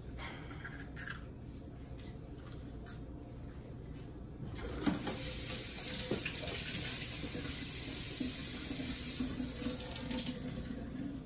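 Kitchen faucet running into a stainless steel sink as hands are rinsed under the stream. The water comes on with a click about four and a half seconds in, runs steadily, and is shut off near the end; before that there are only faint handling sounds.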